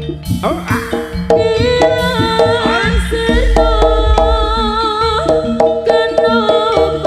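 Live jaranan music from a Javanese ensemble played through a sound system: hand drums beating under a melody that steps between held notes.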